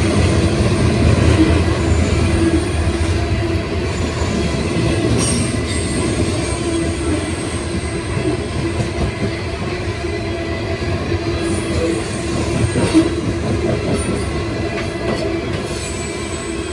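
Loaded CSX coal hopper cars rolling past: a steady rumble of steel wheels on the rails, with a steady hum running through it. The sound eases slightly near the end.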